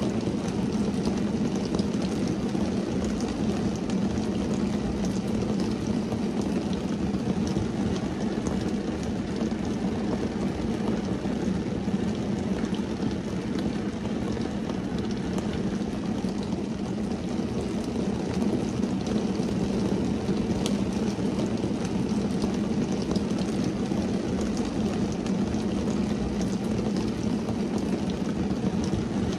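Rain falling on a car's windscreen and body, heard from inside the car: a steady low rush with scattered sharper taps of drops hitting the glass.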